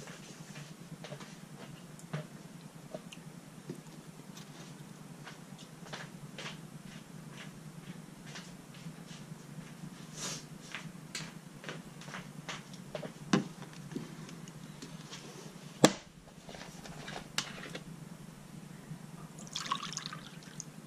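Scattered sharp clicks and knocks from handling a plastic Coca-Cola bottle, the loudest about three-quarters through. Near the end, cola is poured from the bottle into a small glass with a splashing, fizzing hiss. A low steady hum sits underneath.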